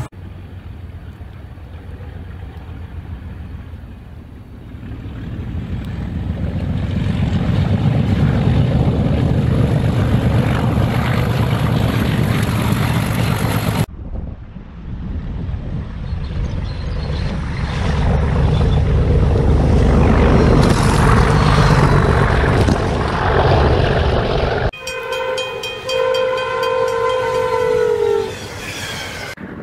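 Trains ploughing through deep snow at speed: a heavy rumbling rush that swells as each train arrives, twice over. Near the end a train horn sounds one long chord that sags in pitch as it stops.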